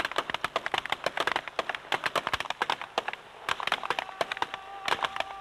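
A line of pistol shooters firing together, shots cracking several times a second and overlapping, thinning out near the end. A steady tone comes in during the last second and a half.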